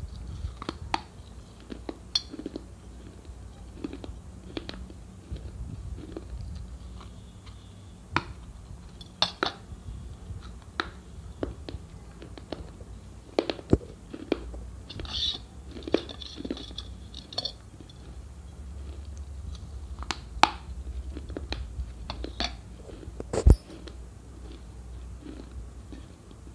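A person chewing something brittle close to the microphone, with sharp crunches every second or so over a low steady hum and one louder crack about 23 seconds in.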